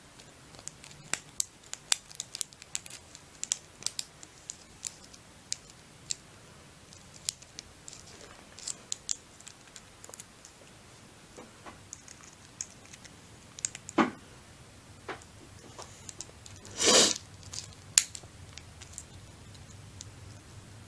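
Small metal lock pick and tension wrench working the pins inside a padlock: irregular light metallic clicks and scrapes, with a louder rattle about three-quarters of the way through.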